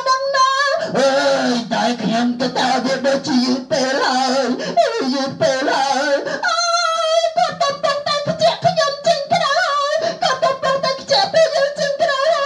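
A song: voices singing over music, without a break.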